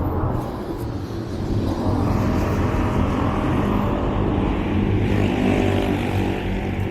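Road traffic: motor vehicle engines running in a steady low rumble, with one vehicle passing close by, its noise swelling from about two seconds in and easing off near the end.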